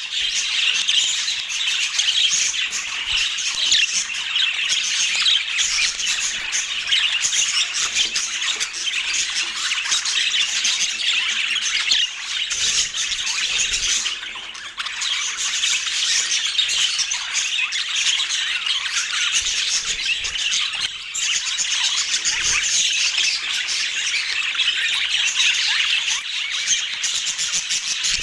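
A flock of budgerigars chattering and squawking nonstop, many calls overlapping into one continuous din.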